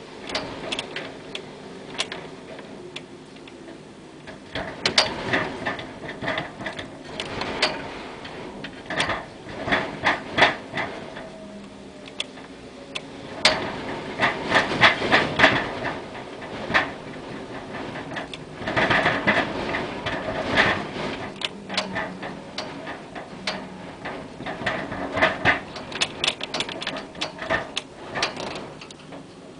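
Something loose outside being blown about in hurricane wind, banging and rattling in irregular clusters of rapid knocks, loudest around the middle. The owner takes it for a loose cable outside.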